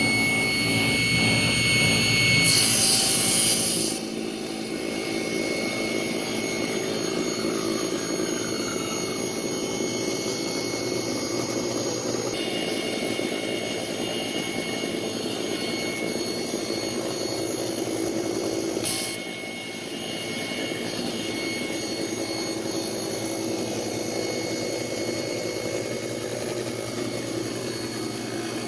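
Woodworking machinery running steadily, with a few sudden shifts in its sound.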